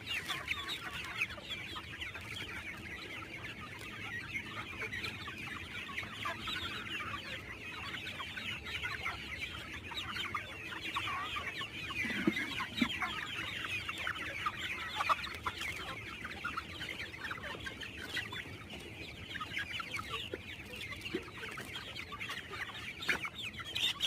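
A flock of chickens (Black Australorps, Rhode Island Reds and desi hens) clucking and calling together in a steady, overlapping chatter.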